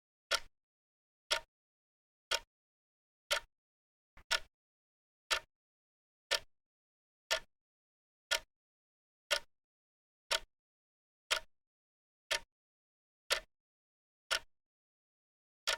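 Clock ticking once a second: sharp, even clicks with dead silence between them, with a faint extra click just before one tick about four seconds in.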